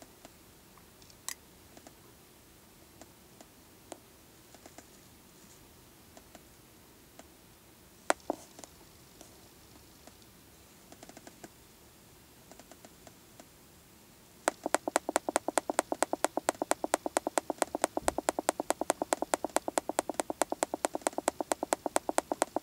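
Autel MaxiDiag Elite MD702 scan tool giving a fast, even run of short clicks, several a second, as its module list is scrolled down with the arrow key. Before that, only a few faint scattered clicks.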